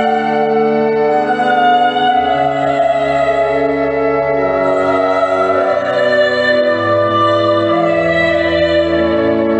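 Marian devotional hymn: slow, long-held chords that change every second or two, with a sung melody over them.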